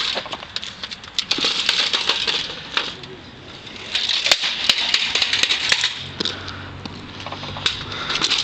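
Xbox 360 console's plastic casing and metal chassis being stomped on and smashed on asphalt: sharp cracks and knocks with two longer bouts of clattering and scraping, about a second in and again midway.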